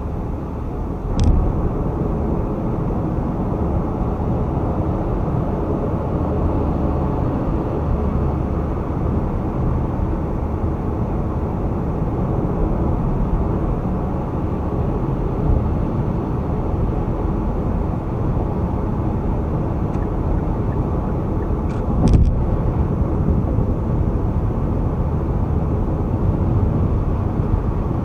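Steady road noise of a car driving at highway speed, mostly low tyre and wind rush, with two brief knocks, one about a second in and one later on.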